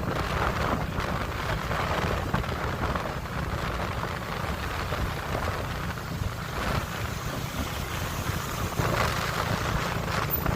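Wind buffeting the microphone on a moving motorbike, with a steady low rumble from the ride and gusty swells of rushing noise.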